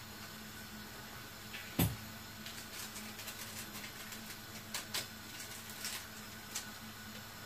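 Scissors snipping open a plastic seasoning sachet with one sharp click about two seconds in, then a run of light clicks and rustles as the packet is handled and its powder shaken into the pan, over a steady low hum.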